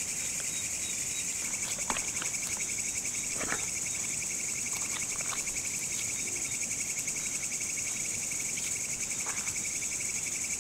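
A chorus of crickets trilling steadily at two high pitches, with a few faint soft squelches of boiled potatoes being mashed by hand in a steel pan.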